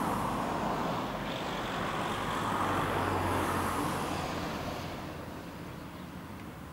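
A road vehicle passing by: a steady rush of tyre and engine noise with a low hum, swelling to its loudest about three seconds in and then fading away.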